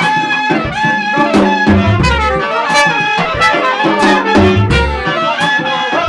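A small live band playing: a clarinet carries the melody over hand drums and a trumpet, with a low bass line underneath.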